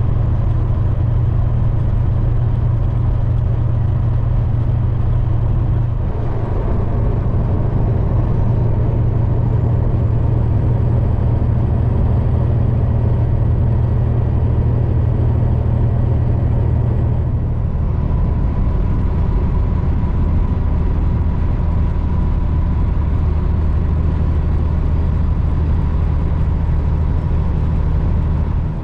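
Peterbilt semi truck running steadily at highway speed, a low diesel engine hum mixed with road noise, heard from inside the cab.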